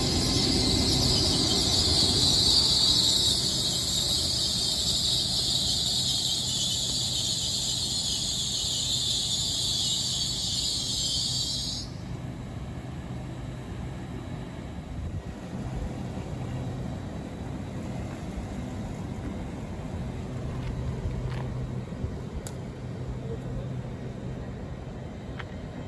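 LNER class 800 Azuma train moving slowly along the platform with a loud, steady high-pitched brake squeal and hiss over a low rumble, which cuts off abruptly about twelve seconds in. After that there is a quieter low, steady hum from the standing train.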